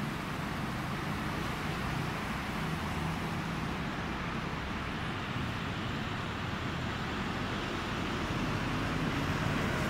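Steady city road traffic noise, the even hum of passing vehicles, growing slightly louder near the end.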